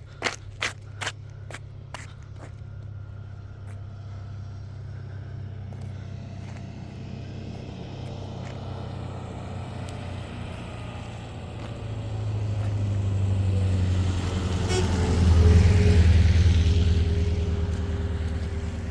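A motor vehicle's engine running with a steady low hum that builds up in the second half, is loudest about three-quarters of the way through, then eases off. A few sharp clicks come in the first couple of seconds.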